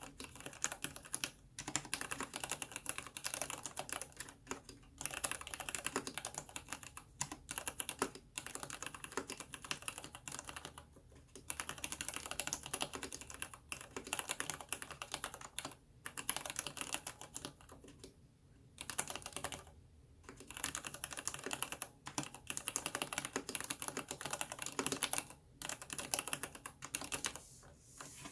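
Fast, continuous typing on a mechanical keyboard with new-production Cherry MX Black linear switches and PBT keycaps: dense runs of keystroke clacks, with brief pauses every few seconds.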